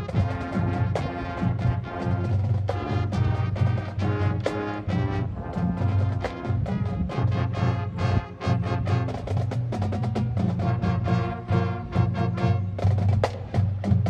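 High school marching band playing live outdoors: brass chords over a busy percussion line, with many quick drum and wood-block-like strikes.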